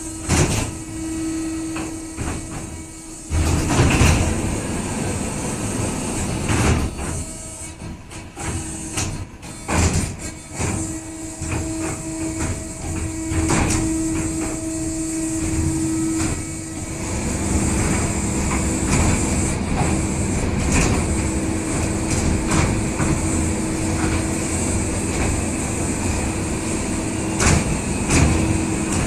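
Six-seat 5D cinema motion platform moving on its actuators as the seat row pitches and rolls: a steady hum that stops and restarts, with repeated mechanical knocks and clatters.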